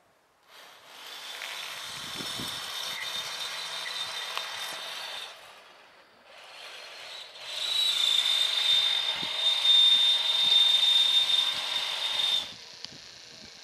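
A machine running in two stretches of about five seconds each. The second stretch is louder, with a steady high whine over a hiss.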